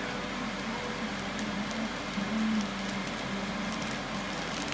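A steady hum, like a kitchen appliance or fan, with faint rustling and ticking of a plastic zip-top bag as egg-dipped meat is dropped into seasoned flour.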